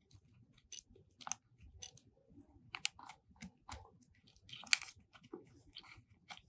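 Faint, scattered small clicks and taps as fingertips handle the new screen's flex cables and press their connectors onto an iPhone XS Max logic board, the sharpest click about three-quarters of the way through.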